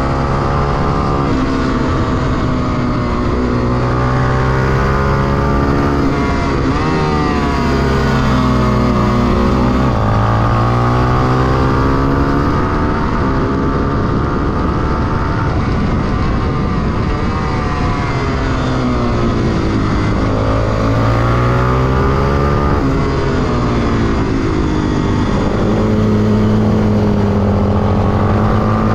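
Honda XR250 Tornado's single-cylinder four-stroke engine heard onboard at racing speed, the engine note climbing as it accelerates through the gears and dropping as it slows for corners, again and again, over steady wind rush.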